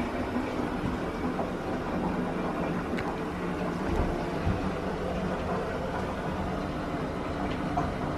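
A steady low hum with an even rushing noise under it, and two soft low thumps about four seconds in.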